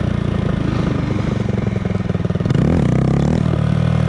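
Small 125cc single-cylinder mini motorcycle engine running under the rider, with a quick rev that rises and falls about two and a half seconds in.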